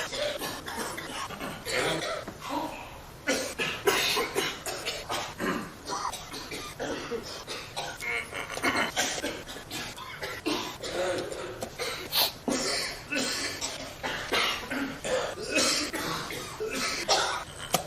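Many people coughing one after another in quick, irregular succession, with some laughter among the coughs.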